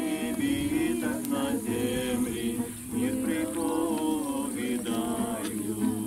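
A small group of people singing a song together.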